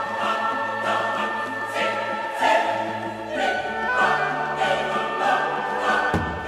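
Background music: a choir singing held chords, moving to a new chord a little past the middle.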